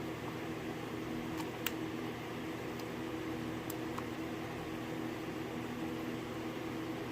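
Steady mechanical hum, like a fan, with about five faint, sharp clicks in the first few seconds from a hook pick working the pin stack of a euro cylinder lock.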